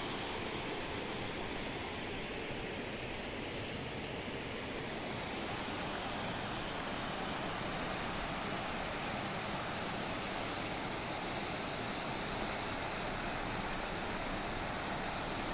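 Shallow mountain river rushing over boulders and stones in small rapids: a steady, even rush of water.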